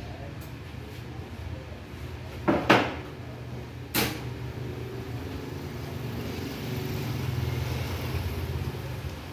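Small edge-banding machine running with a steady low hum. A board knocks sharply onto the tabletop twice about two and a half seconds in and once more at about four seconds, then slides along the table toward the machine as the hum grows a little louder.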